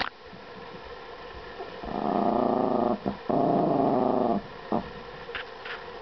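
Yorkshire terrier growling possessively over a toy it won't give up: two low growls of about a second each, starting about two seconds in, with a brief break between.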